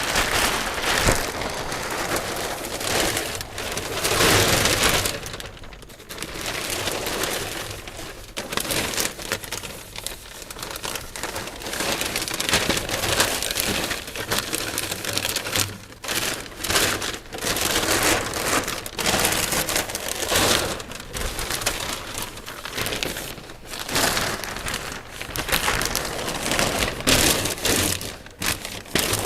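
Sheet lining material crinkling and rustling in irregular bursts as it is handled and fitted into a storage compartment.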